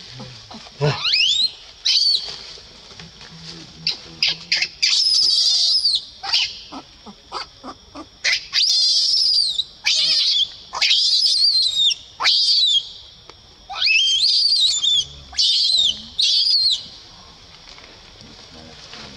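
Newborn baby macaque screaming in distress: a string of shrill, high-pitched squeals, each rising and falling, repeated over and over with short gaps. This is the cry of an infant being pushed away and denied the breast by its mother. The squeals stop a couple of seconds before the end.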